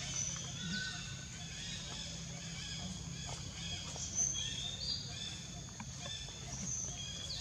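Outdoor ambience of many birds chirping and whistling in short calls, over a steady low hum.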